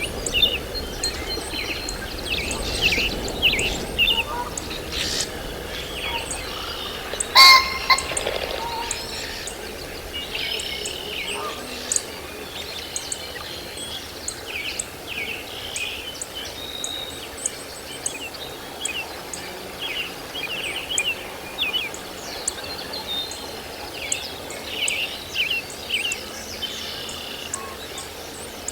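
Birds chirping: many short, high calls throughout, with one louder call about seven seconds in.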